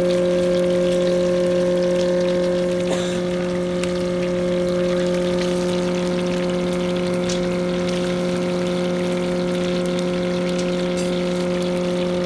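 Fish deep-frying in a large iron pan of hot oil: a steady sizzle and bubbling with scattered small pops, over a loud, steady machine hum.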